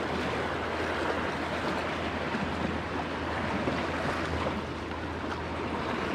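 Sea water lapping and washing against a rocky shore, with wind, as one steady, even wash of noise.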